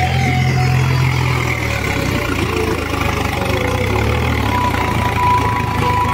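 Swaraj tractor's diesel engine running steadily under load as it drags a leveller on cage wheels through a flooded paddy field. The low drone eases slightly about a second and a half in.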